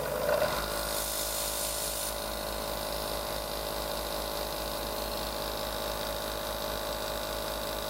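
Nebulizer's small electric compressor starting up and running with a steady hum and buzz, feeding an airbrush that sprays water with a hiss. The hiss is strongest in the first couple of seconds, then settles.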